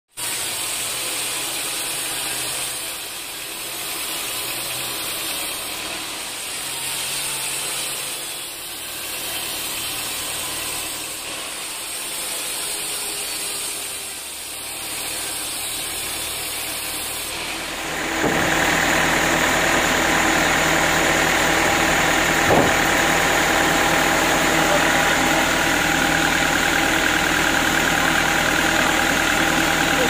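Band sawmill running through teak, giving a steady rushing noise that swells and fades every few seconds. About 18 seconds in it gets clearly louder and a low, steady machine drone comes forward, with a single knock a few seconds later.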